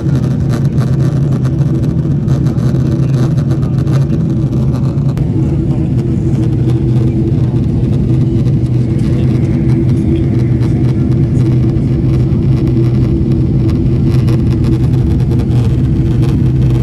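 Steady cabin drone of a Boeing 777-300ER in flight: airflow and GE90 engine noise, an even rushing with a low hum.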